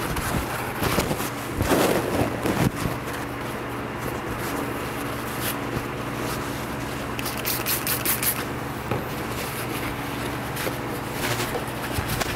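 Paper towels being pulled off a roll and rustled in the hands. The rustling is loudest in the first three seconds, with another short crinkle about halfway through, over a steady low hum.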